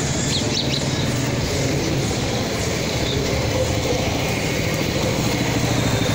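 Motor traffic running steadily, with a motorcycle engine rumbling close by and growing louder near the end. A few short high chirps sound near the start.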